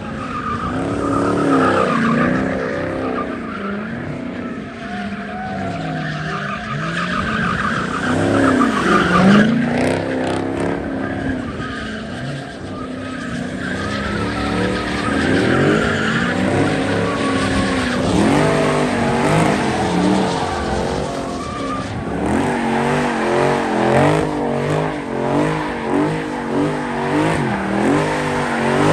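A car doing donuts on pavement: the engine revs up and down while the tires spin and squeal. From about two-thirds of the way through, the revs rise and fall quickly and repeatedly.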